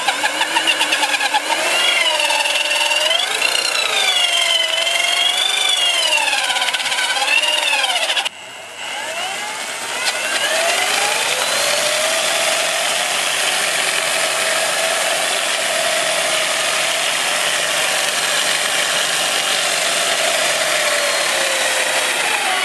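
Cordless-drill motor driving a homemade electric longboard's rear wheel in a burnout, whining as the wheel spins in place on sandy pavement, over a hiss of spraying grit. The pitch wavers up and down for the first several seconds, drops out about eight seconds in, then climbs and holds steady.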